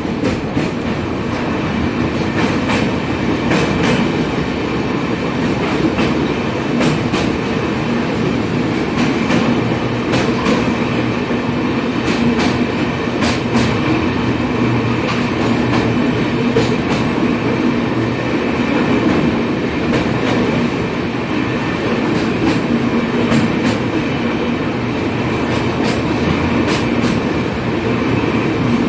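Express passenger train running at speed over a steel truss river bridge, heard at the coach doorway: a steady rolling rumble of wheels on rail with frequent sharp wheel clicks.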